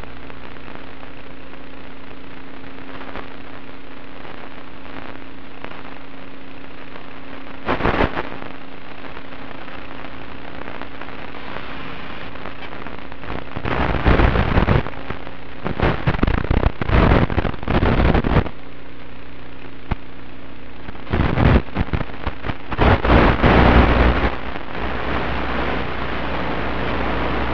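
Static hiss from an analog 1.3 GHz FPV video link's audio channel as recorded by the goggle DVR, with a faint steady hum under it. It breaks into loud crackling bursts once about a third of the way in and repeatedly in the second half, as interference breaks up the signal.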